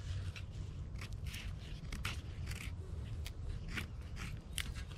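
A cheap folding knife blade shaving curls off a dry stick of elm or maple, short scraping cuts about twice a second.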